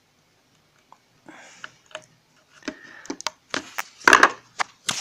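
Plastic parts of a toy RC car being handled and knocked against a wooden tabletop: scattered clicks and clatter with some rustling, starting about a second in and loudest around four seconds in.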